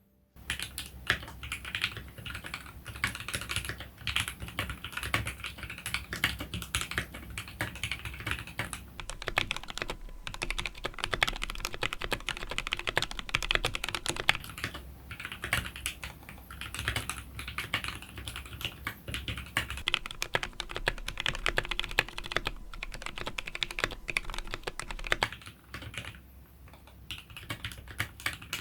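Continuous fast typing on a Duke 65 aluminum top-mount custom mechanical keyboard with lubed Durock L7 linear switches, packing foam in the case and O-rings under the plate. The keystrokes run in a steady dense stream, thinning briefly a few times.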